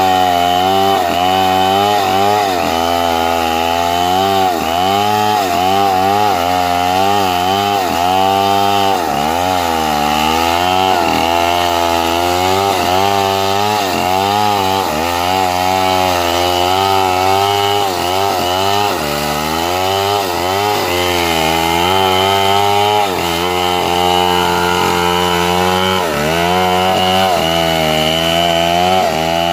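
Two-stroke chainsaw ripping lengthwise along a felled log, running loud at high speed under load. Its pitch dips and recovers about once a second as the bar bites into the wood.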